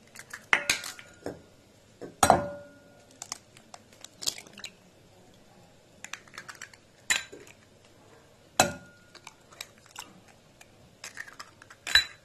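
Eggs being cracked against a glass bowl: about six sharp taps spread out, two of them leaving a brief glassy ring, with smaller clicks between.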